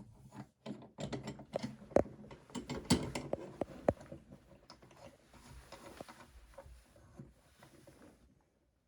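A Glock 20 slide being slid into a sight pusher tool: a run of sharp metal clicks and knocks with handling rustle, thinning out and going quiet near the end.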